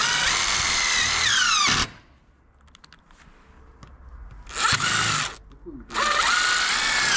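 Power drill driving screws to fix metal gutter hangers, in three runs: two of about two seconds and a short one between them. The motor's whine rises as each run starts and falls toward its end.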